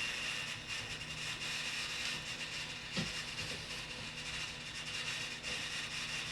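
Steady mechanical running noise with a faint hum, and a single knock about three seconds in.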